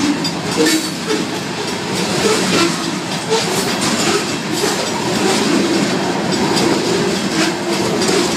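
Covered hopper cars of a Union Pacific grain train rolling past at a level crossing: a steady rumble of wheels on rail with irregular clicks. The crossing's mechanical bells are ringing during the activation.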